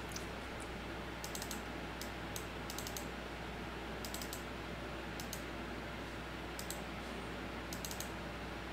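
Light clicking at a computer, in small irregular clusters of two or three sharp clicks every second or so, over a steady low hum.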